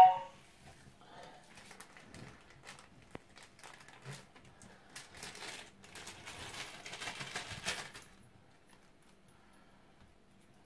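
Small plastic bag being handled, rustling and crinkling, busiest between about five and eight seconds in. A brief loud knock at the very start.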